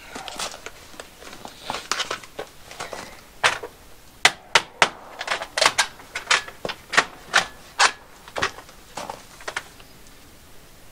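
Steel hem trim being worked up over the edge of a sheet-metal wall panel by hand: metal scraping at first, then a quick, irregular run of sharp metal clicks and taps as the trim snaps and slides along the panel edge.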